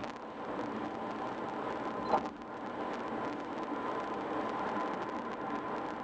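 Steady road and tyre noise of a car driving at highway speed, with one brief knock about two seconds in.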